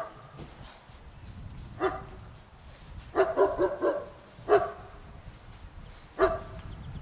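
A dog barking: a few single barks and one quick run of four or five barks in a row.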